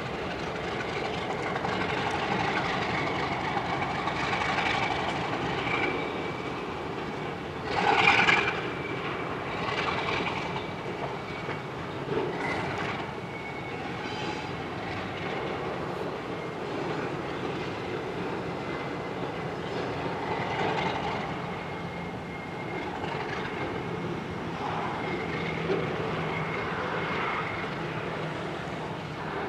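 Freight train moving slowly on the rails, with a thin steady high squeal from the wheels over a rolling rumble. A brief louder burst comes about eight seconds in.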